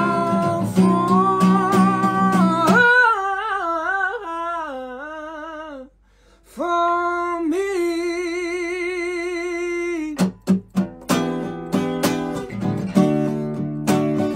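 A man singing a wordless run with wide vibrato over acoustic guitar strumming. The guitar drops out about three seconds in, and after a brief pause the voice holds one long vibrato note. Sharp guitar strums come back near the end.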